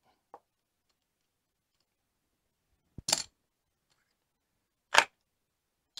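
Casino chips clicking as they are set down on a craps table layout: a faint click, then a sharper click with a brief rattle about three seconds in, and one more click about two seconds later. Near silence in between.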